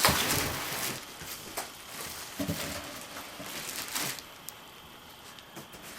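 Cardboard shipping box and packing material rustling and scraping, with scattered knocks, as a portable fridge is pulled out of its box. The handling is loudest right at the start.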